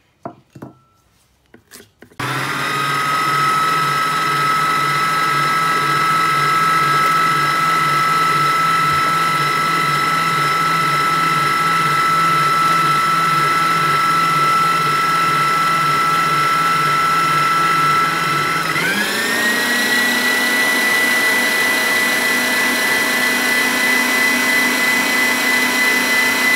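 Electric stand mixer switched on after a few faint clicks, its motor whining steadily as the whisk beats batter. About two-thirds of the way through it is turned up to a higher speed: the whine rises and then holds at the higher pitch.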